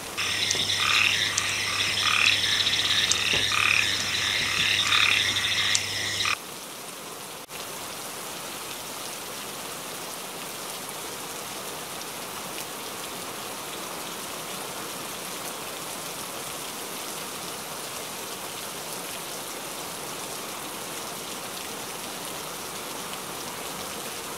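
A chorus of frogs calling loudly in pulses over steady rain, cutting off abruptly about six seconds in; after that, only steady monsoon rain.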